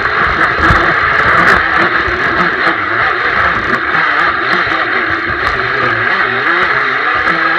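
RC jet boat's motor and jet drive heard from a camera on the deck, its pitch rising and falling with the throttle, over a loud rush of water and spray. Short sharp knocks come here and there as the hull strikes the water.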